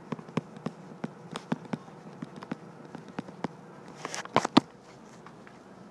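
Stylus tapping and ticking on a tablet's glass screen during handwriting: a dozen or so light, sharp ticks at an uneven writing pace, then a quick burst of louder ticks about four and a half seconds in.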